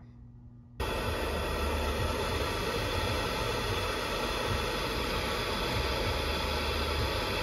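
Handheld gas torch flame burning with a steady hiss, starting about a second in. It is heating rusted, seized exhaust manifold nuts and studs to loosen them.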